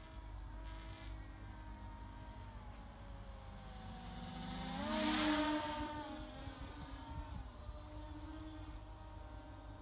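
MJX Bugs 3 quadcopter's brushless motors and propellers buzzing in flight overhead. The whine shifts in pitch as the drone manoeuvres, swells to its loudest about five seconds in, then falls in pitch and fades back.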